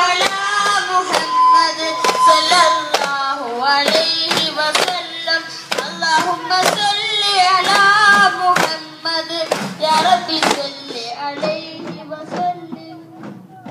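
Voices singing a devotional song over steady rhythmic beats, about two to three a second, fading near the end.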